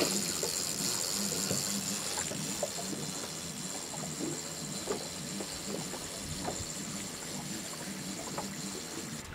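Low steady hum of a boat motor, with light water splashing and small knocks against the hull.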